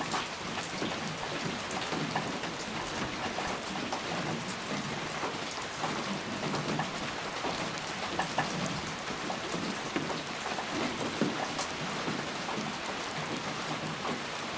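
Steady rain falling, with many individual raindrops ticking sharply against a surface over an even hiss.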